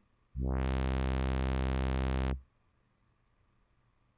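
A single low synth bass note from FL Studio's Harmor synthesizer. Its brightness sweeps up quickly as it starts, it is held for about two seconds, and it then stops abruptly.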